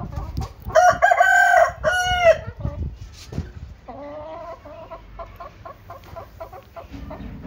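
Aseel rooster crowing once, about a second in: a loud call in two parts lasting about a second and a half. Hens follow with clucking, a lower call and then a run of short repeated notes.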